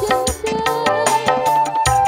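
Live band music: a steady hand-drum beat under a wavering melody line with vibrato, in the style of Indonesian dangdut.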